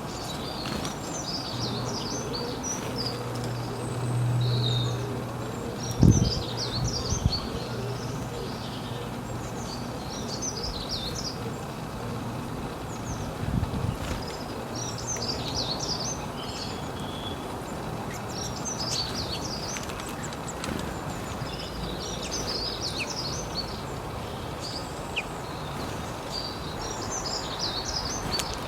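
Small birds singing: short, high chirping song phrases repeated every two or three seconds over steady outdoor background noise. A low hum runs through the first several seconds, and there is a thump about six seconds in and another near the middle.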